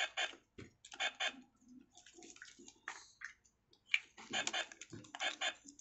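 Handling noise from a plastic toy cash register's handheld scanner: a string of short scuffs, rustles and light knocks as the scanner is moved around its holder.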